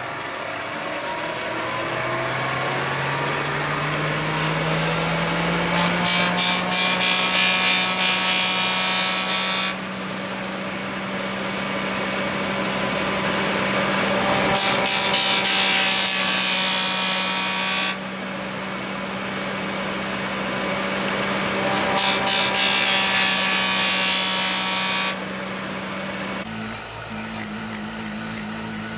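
Motor-driven wood-shaping wheel: the motor hum rises in pitch over the first few seconds, then runs steadily. Three times a wooden handle strip is pressed against the spinning wheel, giving a loud grinding, sanding noise with a whine that lasts three to four seconds each time and cuts off abruptly.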